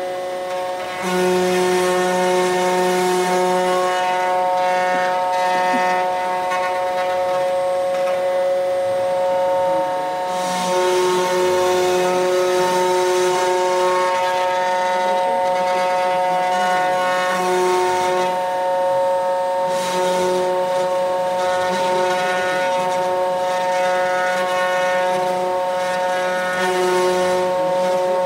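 Desktop CNC wood router running a job: a steady high spindle whine throughout, with lower motor tones and rough cutting noise coming and going in stretches as the bit works the wood.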